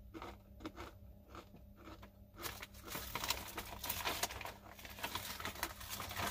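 Crunchy dried-cheese snack being chewed in steady crunches, about three a second. About two and a half seconds in, the snack bag starts crackling and crinkling loudly as a hand rummages in it.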